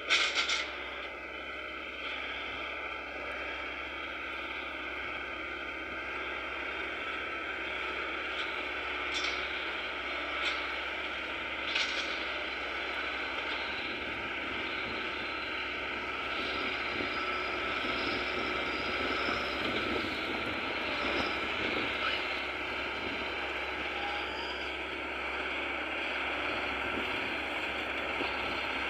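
Diesel engine of a wheeled sugarcane loader running steadily as it loads cane into a truck. There is a sharp crack right at the start and a few shorter clicks around ten seconds in.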